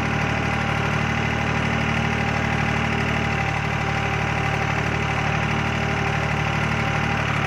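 New Holland tractor's diesel engine running steadily at high revs, its tachometer needle holding near the top of the scale, during a check of whether the horsepower-boosted engine drops RPM.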